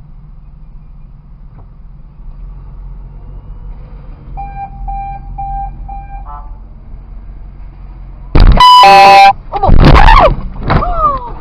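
Car horn held in one long blast at the car ahead as it backs up toward the camera car, after four short beeps over a low idling engine hum. Loud shouting follows right after the horn.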